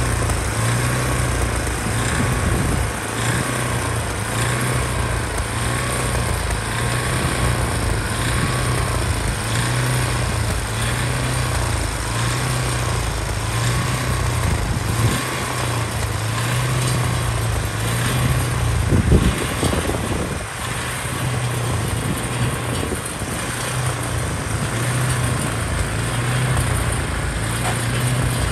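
Two gas walk-behind snowblowers running steadily as they clear snow, their engines droning with a slow wavering about once a second over a rushing hiss. About two-thirds of the way through there is a brief low rumble.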